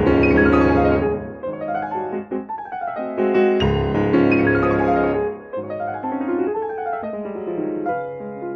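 Solo grand piano played fast, with rapid arpeggio runs sweeping down and up the keyboard. Heavy bass chords sound at the start and again about three and a half seconds in, and the playing is lighter toward the end.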